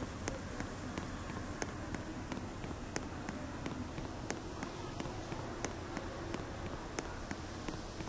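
Footsteps, light even clicks at about two to three a second, over a steady low hum.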